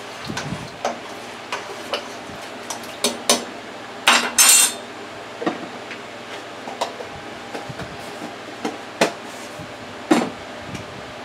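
Irregular clinks and knocks of a metal spoon against a stainless steel stock pot and of utensils and a jar being handled on a countertop, with a short scraping rustle about four seconds in.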